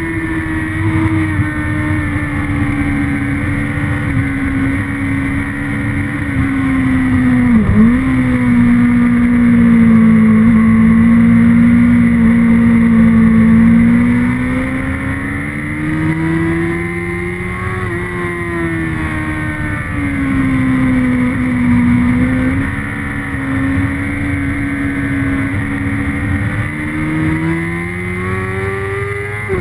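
Onboard sound of a motorcycle engine at high revs on a race track, over steady wind rush. The engine pitch drops sharply once about eight seconds in, then rises and falls with the throttle through the corners and climbs near the end.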